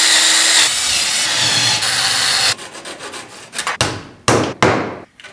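Cordless drill boring a pin hole through wood for about two and a half seconds, then stopping. A few sharp knocks follow near the end.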